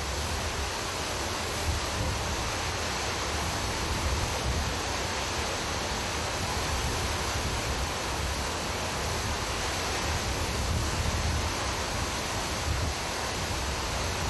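Hurricane-force wind blowing as a steady rushing noise, with low rumbling wind buffeting on the microphone.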